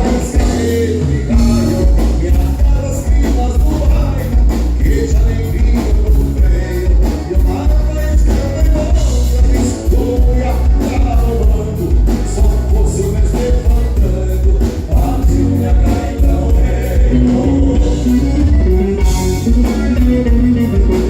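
Live band playing a gaúcho milonga, with a sung vocal over a prominent bass line and a steady beat.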